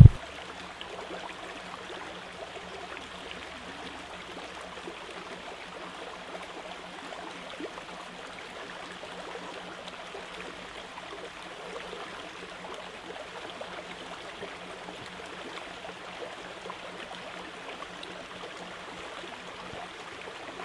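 Steady, faint, even background noise with a low hum under it and no distinct events.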